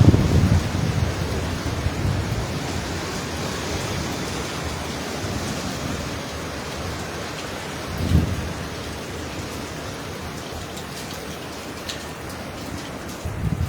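Hurricane wind and heavy rain: a dense, steady rush of noise. Deep rumbling gusts buffet the microphone at the start and again about eight seconds in.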